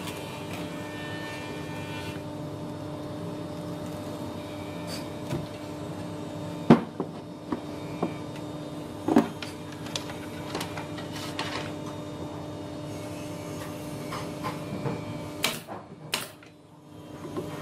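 Wooden cabinet panels knocking and bumping as they are fitted together over a steady low hum, then two sharp pneumatic nail gun shots about a second apart near the end.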